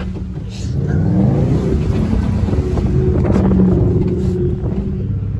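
Pickup truck engine accelerating, rising in pitch over the first couple of seconds, then running steadily at higher revs.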